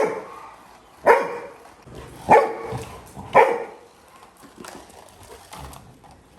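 Labrador retriever puppy barking: four sharp barks about a second apart, then it falls quiet.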